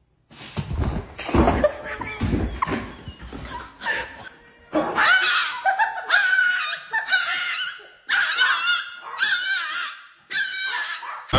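A person laughing hard in a string of bursts, rough and low at first, then high-pitched and wavering.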